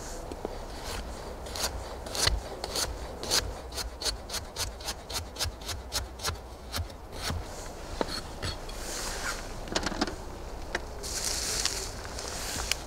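Chef's knife slicing a raw carrot on a wooden cutting board: a quick run of crisp cuts, about three a second, each ending in a tap on the wood. Near the end, a rustling scrape on the board.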